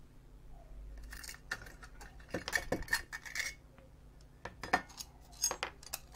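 Thin sheet-metal shielding can being worked off a circuit board and set down: small metallic clinks and scraping, busiest between about one and three and a half seconds in, then a few sharp clicks.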